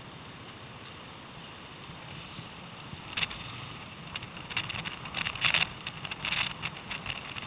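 ATV engine running steadily at low speed. From about three seconds in, short crackling noises come more and more often on top of it.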